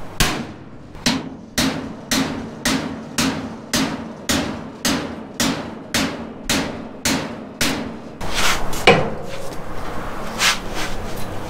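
Hammer blows on the steel rear edge of a pickup's flatbed, about two a second, knocking at a partly cut section to break it loose. About eight seconds in the hammering stops and gives way to a rougher metal scraping with a couple of sharp cracks as the cut piece is wrenched back by hand.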